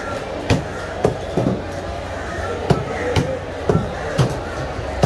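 Large knife chopping tuna into chunks on a thick wooden chopping block: sharp chops about twice a second, unevenly spaced, over market chatter.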